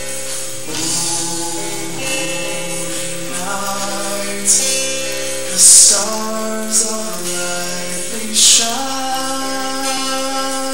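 Live worship music: strummed acoustic guitar chords with voices singing along. A few sharp, bright hits land over the music around the middle, the loudest about six seconds in.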